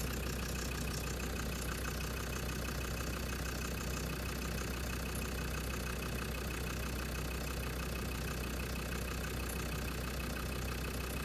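Land Rover Defender TD5's five-cylinder turbodiesel idling steadily, with no distinct knock standing out; the owner hears none of the tapping he has been waiting for at this point.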